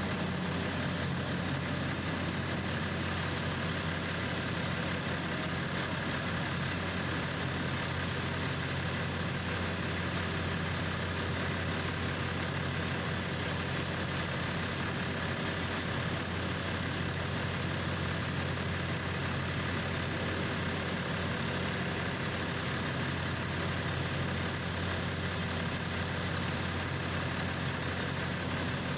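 A heavy engine idling steadily, a low, even hum with no revving.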